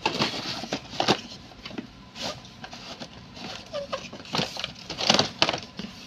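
Cardboard toy box being opened and handled by hand: irregular rustling, scraping and tapping of the cardboard and its packaging, loudest about five seconds in.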